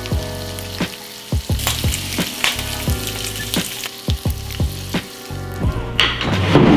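Bacon and egg sizzling as they fry in a pan, a steady frying hiss, under background music with a regular kick-drum beat; everything gets louder about six seconds in.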